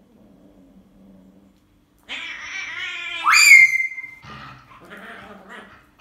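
A dog and a tabby cat play-fighting, with faint low sounds, then a rough vocal outburst about two seconds in. About three seconds in comes the loudest sound, a cry that rises sharply in pitch and holds for most of a second, followed by quieter yips and scuffling noises.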